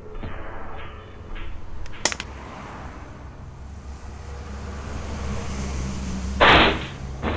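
Cartoon sound effects: a sharp crack about two seconds in, then a low street-traffic rumble that slowly builds, with a loud, short noisy burst about a second before the end.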